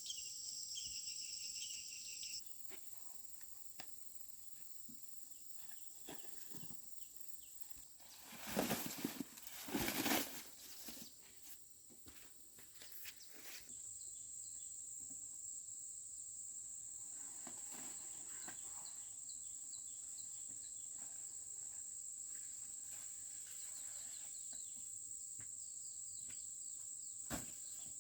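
Insects buzzing and chirping in a high, steady drone, pulsing at first and then settling into one continuous tone. About nine seconds in comes a loud two-second burst of rustling and crackling from dry corn plants being handled, with scattered small snaps around it.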